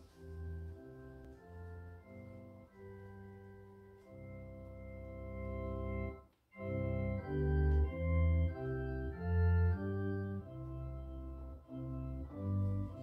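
Organ music: sustained chords that change every second or so, with a brief break about six and a half seconds in, after which the chords come in louder.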